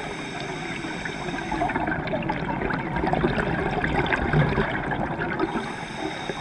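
Scuba regulator breathing underwater: a rush of crackling, bubbling exhaust bubbles, loudest a little past the middle.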